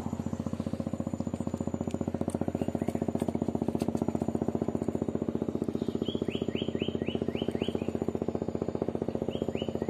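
A small engine running steadily with a fast, even pulse throughout. A bird calls over it: a quick run of about seven down-slurred chirps some six seconds in, and a few more near the end.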